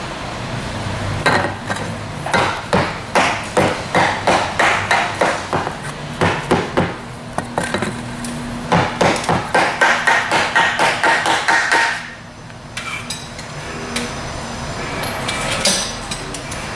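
Hammer blows on metal, about three a second, in two runs with a short pause between, each strike leaving a ringing tone. The runs stop about twelve seconds in.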